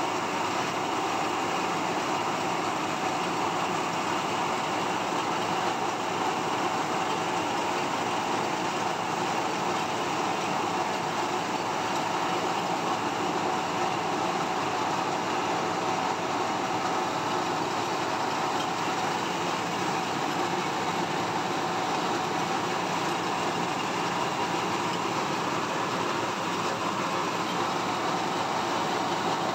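Belt-driven rice milling machine, powered by an electric motor, running steadily while it separates the husk and chaff from the rice: a constant, even mechanical noise that does not change.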